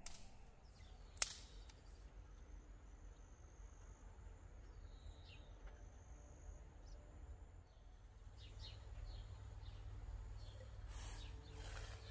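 Quiet outdoor ambience: a low rumble of wind or distant noise, faint bird chirps and a thin steady high insect-like tone, with one sharp click about a second in.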